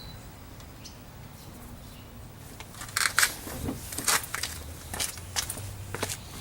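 Plastic interior door trim panel being handled and positioned against the door, giving irregular rustles, light clicks and knocks that start about two and a half seconds in.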